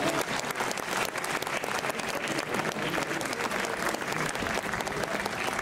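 Crowd of spectators applauding, many hands clapping steadily throughout.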